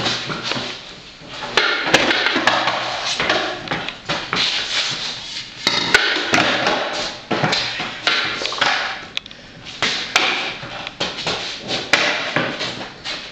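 Skateboard on a concrete floor: wheels rolling with a rough grinding noise, broken by repeated sharp clacks and slaps as the deck is flipped and comes down on the concrete.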